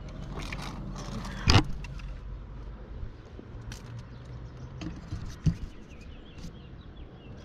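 A climber's gear clinking and knocking against limestone rock, with lighter clicks and scrapes over a low steady rumble. Two sharp knocks stand out, about a second and a half in and again about five and a half seconds in.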